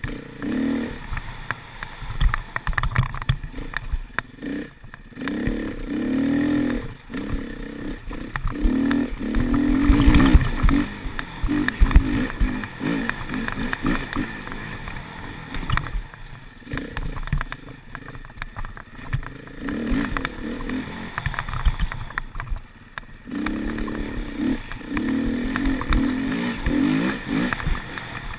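Enduro dirt bike engine revving up and dropping back again and again as the throttle is opened and shut, with short knocks and rattles from the bike jolting over a rough trail.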